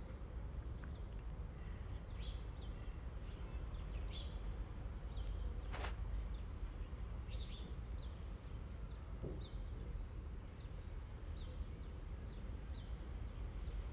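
Faint, scattered high chirps from small animals over a steady low rumble, with a single click about six seconds in.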